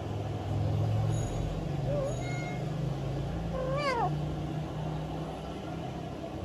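Newborn kitten mewing twice: a short call about two seconds in, then a louder mew about four seconds in that rises and then drops away.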